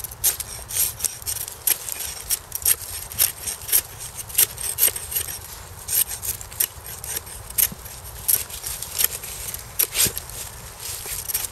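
Ka-Bar USN Mark 1 knife blade shaving curls down a wet stick to make a feather stick: quick repeated scraping strokes, about two a second.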